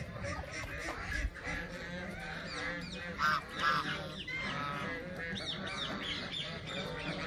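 A flock of domestic geese and ducks calling: repeated short, nasal honks, the loudest coming twice just over three seconds in, with a few higher chirps about five seconds in.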